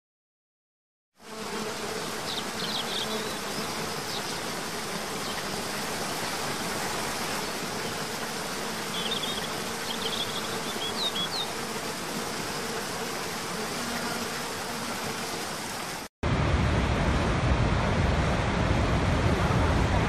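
After about a second of silence, the steady rush of a cascading waterfall, with a few faint high chirps over it. Near the end, after a brief dropout, a louder, deeper rush of a large waterfall takes over.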